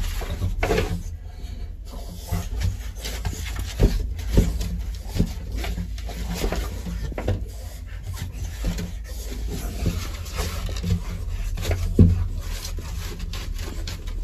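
French bulldog scuffling and rubbing itself on a chipboard floor and walls: irregular scraping of claws and body on the wood, broken by bumps and knocks, the sharpest one near the end.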